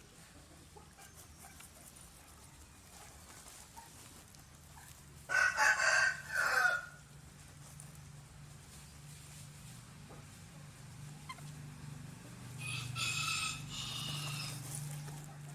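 Rooster crowing: one loud crow about five seconds in, broken into three parts, then a second, fainter crow near the end. A low steady hum runs beneath.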